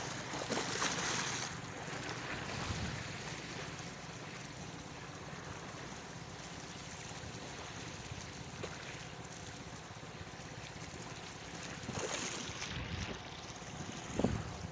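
Steady wind and sea-surf noise, with wind buffeting the microphone in louder gusts at the start and again near the end.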